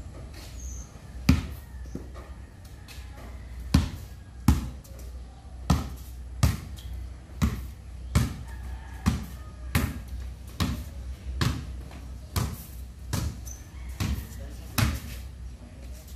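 Basketball dribbled on concrete: one bounce, a pause of a couple of seconds, then steady dribbling at a little more than one bounce a second.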